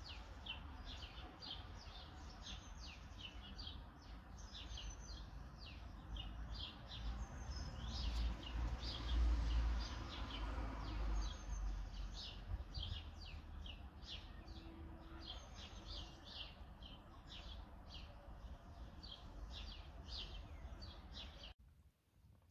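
Small songbirds chirping and twittering, many short calls a second, over a low rumble that is loudest about eight to ten seconds in. The sound cuts off abruptly near the end.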